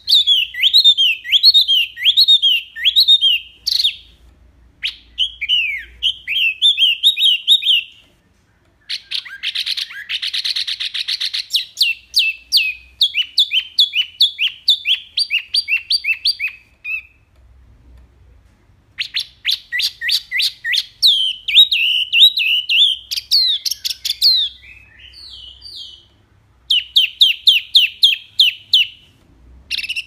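A caged wambi songbird singing loud, rapid phrases of sharp chirping notes, many sliding down in pitch. The phrases are broken by a few short pauses, and a dense buzzy trill comes about a third of the way through.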